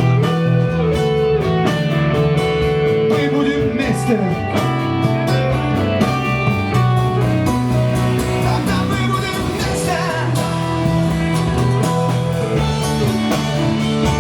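Rock band playing an instrumental passage: guitars and bass hold steady chords while a lead line slides up and down in pitch.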